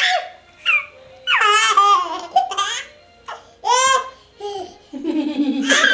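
A toddler laughing and squealing in a string of short, high-pitched bursts.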